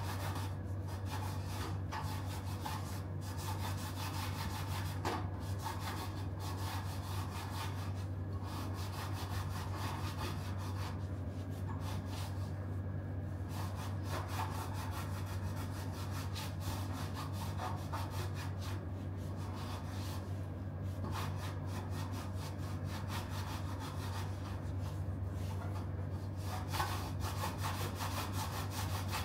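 Microfiber cloth rubbing back and forth over a carbon bicycle rim, wiping off leftover tubular-tape residue, over a steady low hum.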